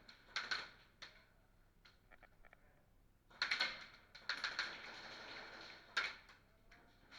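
A run of sharp clicks and short, rapid clicking rattles. There are a few single clicks, a faint quick ticking about two seconds in, a dense rattle at about three and a half seconds and a rougher stretch after it.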